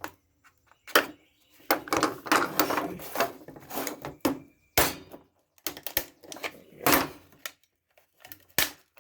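Plastic housing of an old hair dryer being pried apart by hand: clattering and rattling of the plastic shell, broken by several sharp snaps and clicks.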